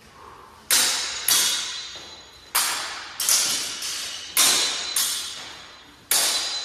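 Longswords clashing in a sparring exchange: about eight sharp blade-on-blade strikes, some in quick pairs, each ringing and fading over about half a second.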